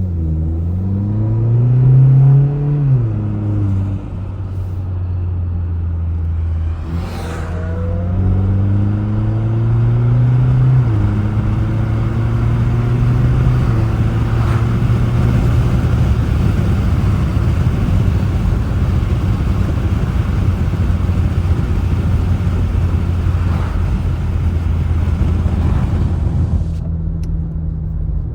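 Turbocharged four-cylinder engine of a Volkswagen Jetta Mk7 with an aftermarket intake, accelerating hard: the pitch rises, drops with a gear change about seven seconds in, and climbs again. It then settles into a steady cruising drone with road noise.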